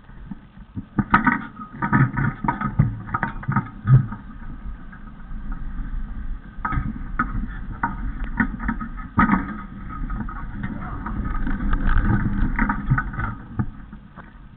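Irregular knocks and rattles of a handlebar-mounted camera jolting over rough sandy ground on a bike ride, with wind rumbling on the microphone. The knocks come thickest about a second in and again near the middle.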